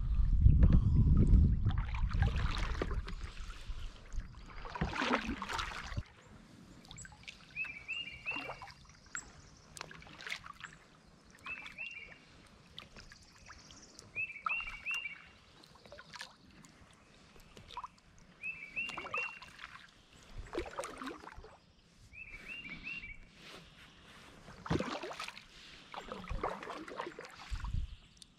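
Kayak paddle strokes: the blade swishing through water and dripping, every few seconds. Between the strokes a bird repeats a short chirped call of a few quick notes, five times. A low rumble fills the first few seconds.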